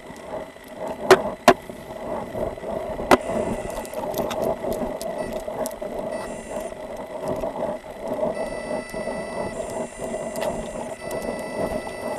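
Footsteps and uniform and gear rubbing against a body-worn camera's microphone as the wearer walks, with three sharp knocks, two close together about a second in and one around three seconds in.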